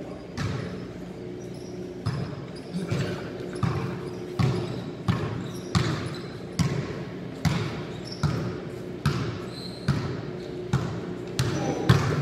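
Basketball bouncing on a hard court floor, a fairly steady beat of about one bounce every 0.8 seconds, each bounce echoing in a large hall.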